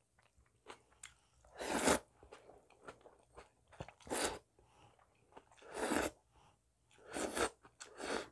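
A person slurping thin wheat noodles in broth: five short noisy slurps spread through, the last two close together, with soft chewing sounds between.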